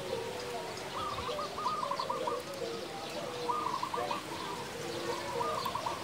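Zebra dove (perkutut) song: repeated phrases of quick, rolling coo notes, about one phrase every second or so, over lower, softer cooing.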